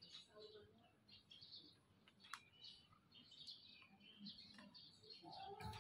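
Near silence, with faint bird chirps in the background and one sharp click about two and a half seconds in.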